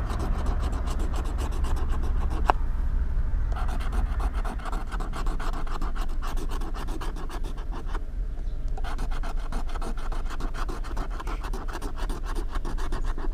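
Rapid scratching strokes rubbing the latex coating off a scratch-off lottery ticket, stopping briefly twice, over a steady low rumble.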